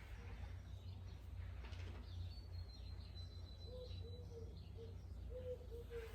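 A dove cooing in a run of short, low, repeated notes in the second half, over a steady low rumble. A thin, high, steady whistle sounds from about two seconds in for about two seconds.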